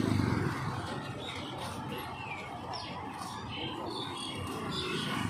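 Short bird chirps over the steady background noise of an open-air market.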